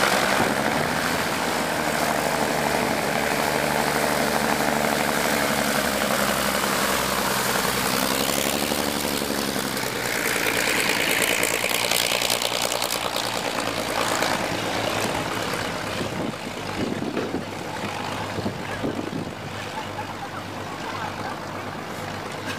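Engines of a de Havilland Dragon Rapide twin-engined biplane running as it taxis. Their steady note wavers in pitch about eight seconds in, then grows rougher and fades as the aircraft moves away.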